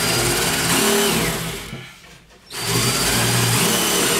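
Cordless drill boring small holes through a particleboard cabinet side: two runs of steady drilling, with a short break about two seconds in. The holes are relief holes around the scored outline for a hole saw.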